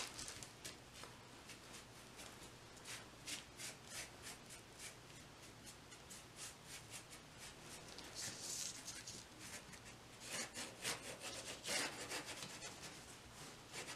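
Flat bristle brush scrubbing acrylic paint across a textured canvas board in quick repeated strokes, a faint dry scratching that gets busier and louder about ten seconds in.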